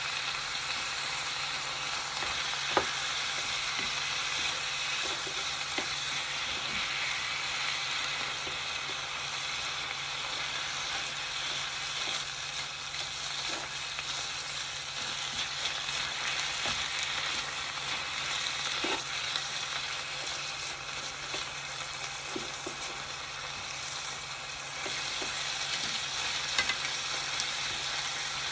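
Ground meat and diced vegetables sizzling in a frying pan as they are stirred with chopsticks and a metal spatula, with a few sharp clicks of the utensils against the pan. A steady low hum sits underneath.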